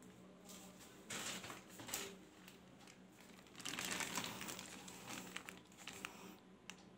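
White parcel wrapping crinkled and crumpled by hands as it is handled. The rustling comes in a burst about a second in and again, loudest, around four seconds in.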